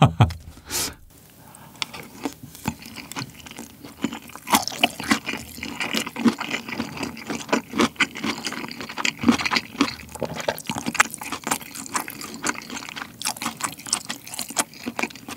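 Close-miked chewing of a mouthful of rice with fried Spam cubes, Jamaican-style sauce and a cube of pickled chicken radish: a dense run of short wet clicks and smacks.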